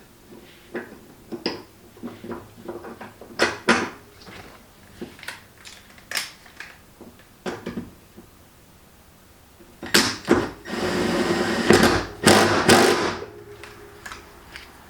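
Scattered clicks and knocks of car interior parts being handled, then, about eleven seconds in, a small power tool runs for about three seconds.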